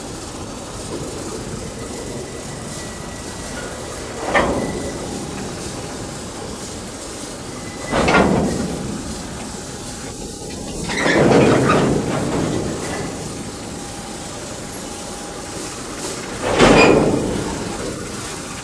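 A CC 201 diesel-electric locomotive and its coal wagons moving slowly while shunting. Under a steady running noise come four loud bangs, a few seconds apart, each dying away over about a second.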